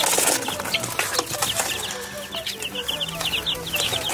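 Young chicks peeping rapidly and shrilly as one is caught by hand in their straw bedding, with straw rustling under the hand. The peeps come thickest in the second half.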